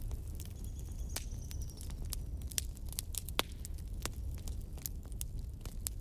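Wood fire burning in a fireplace: a steady low rumble of flames with irregular sharp crackles and pops, and a faint high whistle about a second in.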